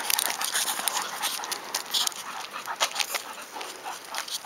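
Dog panting, with irregular scuffs and clicks over it.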